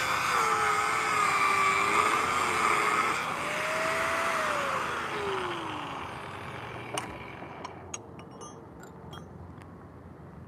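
Electric angle grinder cutting a steel reinforcing rod, its motor whine wavering under the load of the cut. About four seconds in the pitch rises as the disc comes free, then falls steadily as the disc spins down, leaving a few light clicks near the end.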